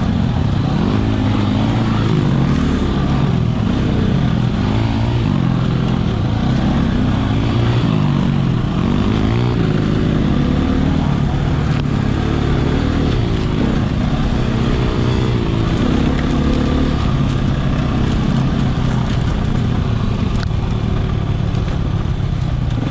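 Husqvarna 300 two-stroke dirt bike engine revving up and down over and over while riding single track, its pitch rising and falling every second or two.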